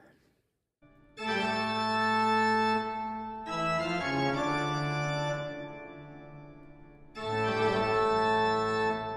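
Background music: held organ chords that begin about a second in and change every few seconds.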